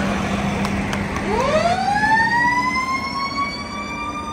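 Fire truck siren starting up about a second in, winding quickly up in pitch and then holding a high, steady wail.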